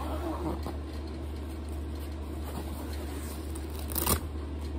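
Zipper being pulled open on a nylon carry bag, with the fabric rustling and a short sharp rasp about four seconds in, over a steady low hum.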